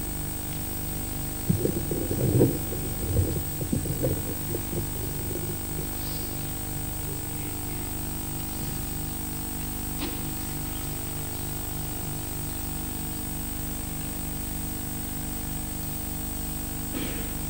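Steady low electrical hum with a regular throb and a thin high whine over it. A spell of muffled low knocks and rumbles comes about one and a half to five seconds in.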